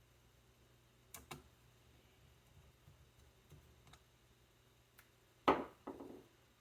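Small hardware being handled inside an open laptop at the SSD slot. There are two quick clicks a little over a second in and a few light ticks, then a louder knock about five and a half seconds in, followed by a softer short tap.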